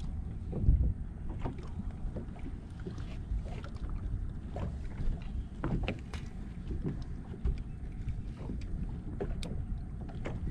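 Small waves slapping against a bass boat's hull, with wind noise on the microphone and scattered light knocks and clicks.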